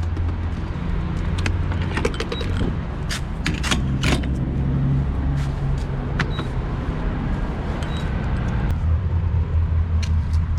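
Car driving on the road, a steady low rumble of engine and road noise as heard inside the cabin, with scattered sharp clicks and knocks.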